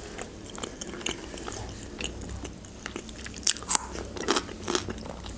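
Mouth sounds of someone chewing grilled chicken breast, with many small wet clicks. The clicks get brighter and come in a cluster about three and a half seconds in, as another piece goes into the mouth.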